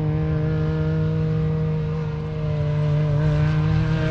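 Off-road race vehicle engine running on the course with a steady, held note. It dips slightly about two seconds in, then grows louder.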